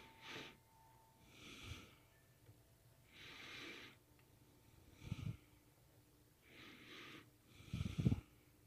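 A man breathing heavily close to the microphone, about six breaths in and out at a slow, even pace. The ones about five seconds in and near the end are the loudest and carry a low thump.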